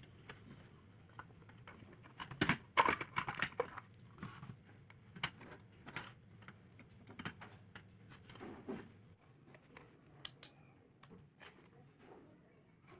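Hands handling the plastic housing, sealed battery and wired circuit board of an emergency light: scattered clicks and knocks of plastic and parts, with a louder cluster of knocks and rattling about two to four seconds in.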